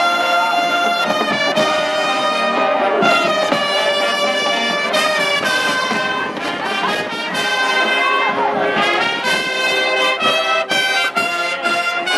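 High school marching band playing: brass and saxophones sounding full, sustained chords that change about every second, with drums.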